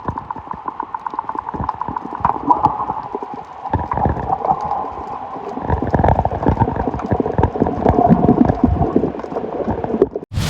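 Seawater being sucked down into a hole in the rocks, gurgling and glugging: "gugogogo". It starts as a rapid knocking rhythm and turns louder and deeper about four seconds in. It cuts off suddenly near the end.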